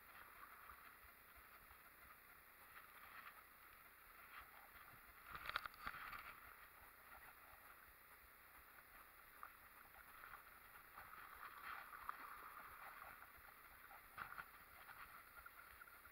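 Near silence: faint lapping and gurgling of river water, with a few soft knocks, the loudest about five and a half seconds in.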